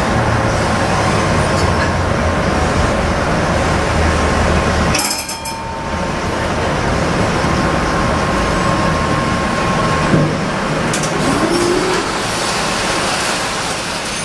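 Tatra T4D tram running along the track, heard from inside the car: steady rolling noise of steel wheels on rails with the running gear, with a faint steady whine. The noise dips briefly about five seconds in.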